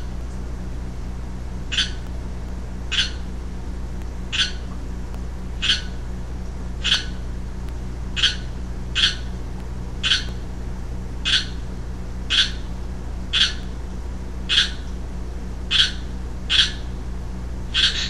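Young male Pacific chorus frog (Pseudacris regilla) giving its advertisement call: about fifteen short, sharp calls, roughly one a second at uneven spacing, over a steady low hum.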